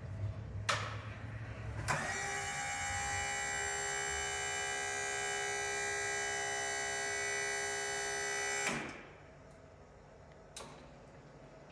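Electric pallet truck's hydraulic pump motor running at a steady pitch, a high electric whine, while the forks are raised. It starts about two seconds in and stops abruptly near the end, with sharp clicks before and after.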